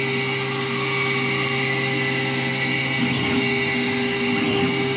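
Langmuir Systems MR-1 gantry CNC mill full-width slotting aluminum with an end mill at 8,000 rpm and 235 inches a minute: a steady cutting tone over a hiss. It holds the cut under load without bogging down or stalling.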